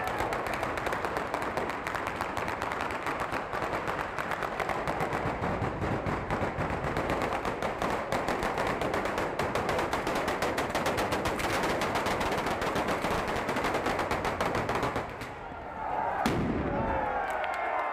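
A batteria alla bolognese, a long chain of firecrackers strung on overhead wires, going off in rapid, continuous crackling bangs that stop about fifteen seconds in. A single sharp bang follows, then the crowd shouts and cheers.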